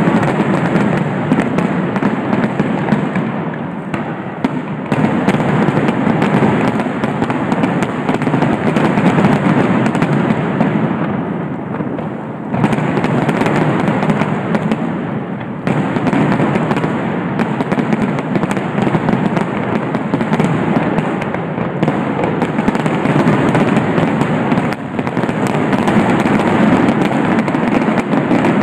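Professional aerial fireworks shells going off in a dense, continuous barrage like a finale, burst after burst running into one another with hardly a gap, the sound dipping briefly a few times before picking up again.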